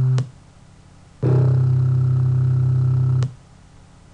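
A synthesized pure tone cuts off just after the start. About a second in, a steady two-second computer-generated sum of pure tones plays and stops abruptly. It is built from the first four peaks of a piano's C1 line spectrum and is a partial, somewhat piano-like rebuild of the note.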